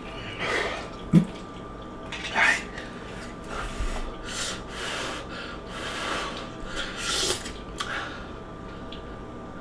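Short breathy sniffs and hissing breaths, one roughly every second, from people reacting to the burn of extremely spicy noodles, with a sharp click about a second in.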